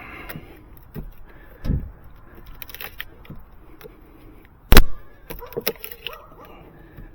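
Hammer knocking on a deck's rotted wooden stair tread to work it and its nails loose: a few scattered knocks, the loudest and sharpest a little under five seconds in, followed by lighter taps and clicks.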